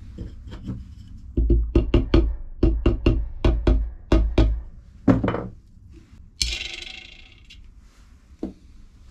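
A quick run of about a dozen hard knocks, roughly three a second, then one heavier knock, a brief hiss and a last small knock near the end.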